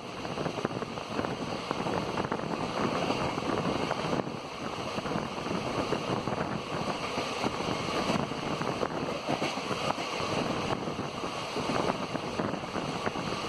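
Two passenger trains passing each other at speed on adjacent tracks: a steady rush of steel wheels on rail with dense rattling clatter, and wind buffeting the microphone at an open coach door.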